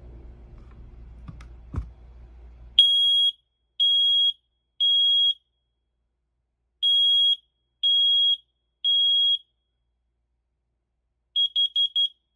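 HATHEPHS smoke and carbon monoxide combo alarm sounding: loud, high-pitched beeps in two groups of three, the temporal-three smoke alarm pattern, then four short rapid beeps near the end. Before the beeping starts there is some low handling noise and a sharp click.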